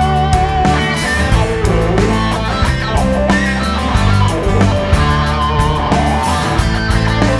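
Instrumental break in a country rock song: an electric guitar plays a bending lead line over bass and drums.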